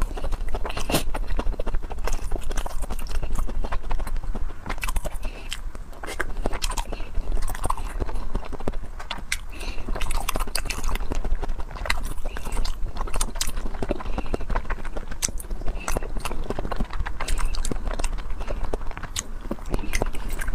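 Close-miked chewing and biting: a rapid, steady run of sharp wet clicks and smacks from a mouth working on food.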